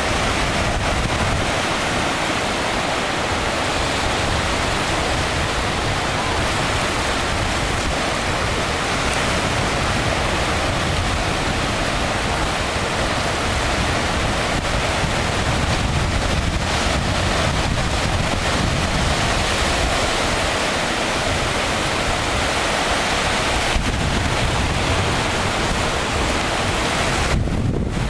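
Surf breaking and washing up the beach, with wind blowing on the microphone; a steady, unbroken noise throughout.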